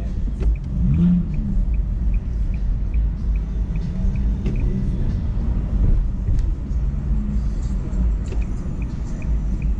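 Car cabin rumble from driving slowly in town, with a turn signal ticking about three times a second. The ticking stops about four and a half seconds in and starts again near the end.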